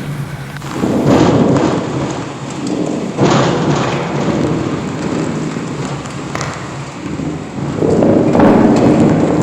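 Heavy rainstorm: steady rain with wind, swelling loudly about a second in, again around three seconds, and near the end.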